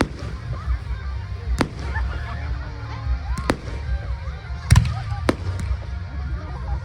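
Aerial fireworks shells bursting: four or five sharp bangs a second or two apart, the loudest just before the five-second mark, over a steady low rumble.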